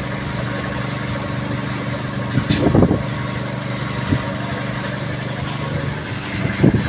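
Engine idling steadily with a constant low hum, with a short knock about two and a half seconds in.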